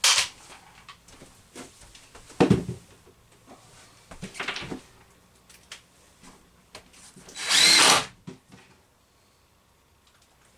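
Power drill running in one short burst of just under a second, about three-quarters of the way through, after a few sharp knocks of handling.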